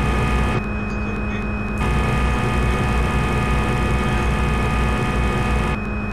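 Simulated CNC milling machine sound from a CNC simulator: a steady spindle hum, with a hiss of cutting noise that switches on while the end mill feeds around the pocket on a circular-interpolation block and drops out between single-block moves. The cutting noise is on briefly at the start, off for about a second, back about two seconds in, and stops near the end.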